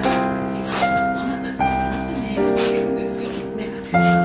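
Background music: slow sustained notes and chords, a new one struck about every second and left to ring.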